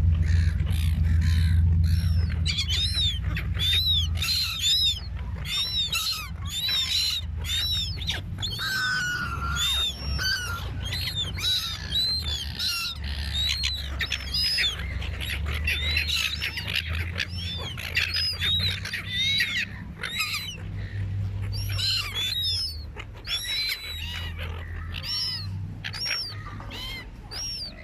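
A flock of seagulls, most likely silver gulls, calling over one another in a dense, continuous run of short, high, arched squawks, with a steady low rumble underneath.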